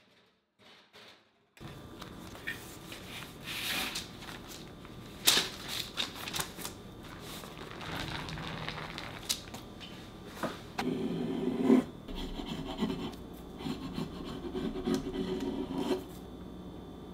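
Baking paper rustling and crinkling as it is peeled off a baked chocolate sponge sheet and handled on a wooden table, with a few sharp taps and knocks. It starts about a second and a half in, after near silence.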